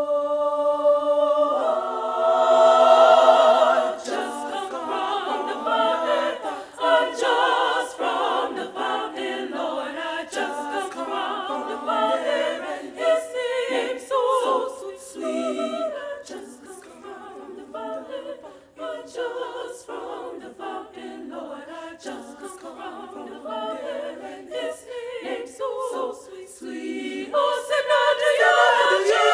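High-school women's choir singing a cappella in several parts. It opens on a held chord, moves into shifting harmonies, grows quieter through the middle, and swells again near the end.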